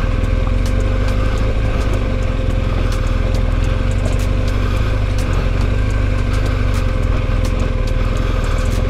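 BMW R1250GS Adventure's boxer-twin engine running steadily as the motorcycle rolls over a loose, rocky trail, with frequent sharp clicks of stones under the tyres.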